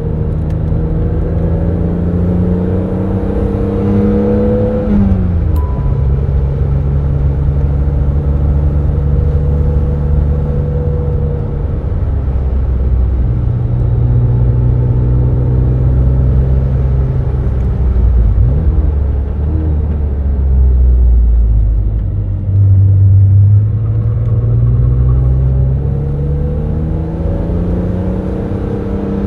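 BMW Z3 M Roadster's 3.2-litre naturally aspirated inline-six under way, heard from the driver's seat: it climbs in revs, drops in pitch at a gear change about five seconds in, runs fairly steadily through the middle, then climbs again near the end.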